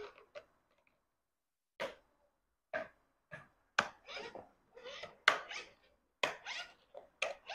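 Plastic wheel plates being pressed by hand onto the plastic wheels of a ride-on toy car: a string of sharp clicks and knocks at uneven intervals as the clip-in locks snap home, with brief scratchy handling between them.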